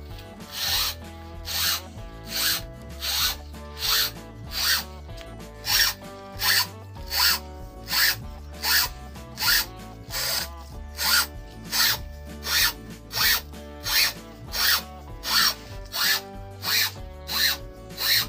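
A blade slicing a used truck tire into a rubber strap, making a rasping cut with each pull of the rubber, about one and a half strokes a second. Soft background music plays underneath.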